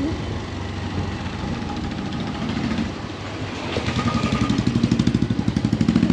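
An engine running with an even throb of about ten beats a second, growing louder from about four seconds in.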